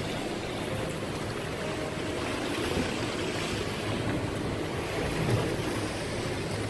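Tour boat's engine running steadily, mixed with wind and sea water rushing and splashing around the hull.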